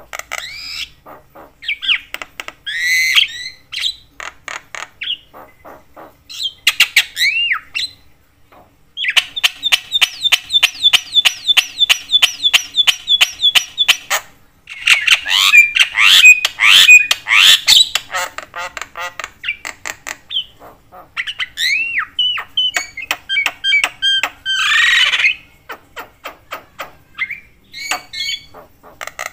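Javan myna in full, chatty song: a loud, nearly unbroken string of harsh squawks, whistled notes that slide up and down, and rapid runs of repeated clicking notes. There are short breaks about eight and fourteen seconds in.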